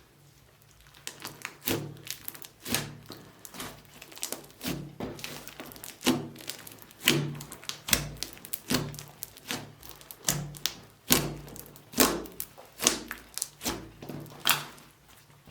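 Slime being mixed and handled: an irregular run of sticky clicks, taps and soft thuds that starts about a second in and stops shortly before the end.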